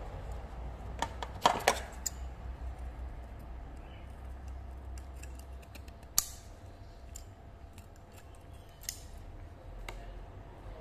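Kitchen scissors snipping the fins and head off a small red mullet: a handful of sharp snips and clicks, loudest about a second and a half in and again about six seconds in.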